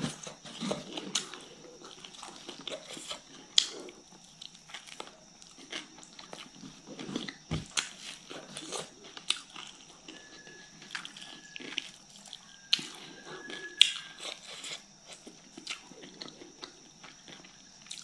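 Close-up mukbang eating sounds: wet chewing and lip-smacking of a hand-fed mouthful of rice and fish curry, with crunches from the crisp salad and irregular sharp clicks and squelches of fingers working the food.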